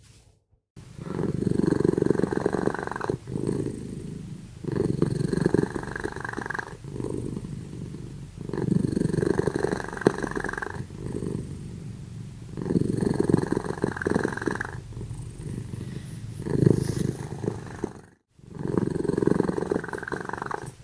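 Domestic cat snoring in its sleep, loud and rhythmic: a strong snore on each breath about every four seconds, with a softer sound between.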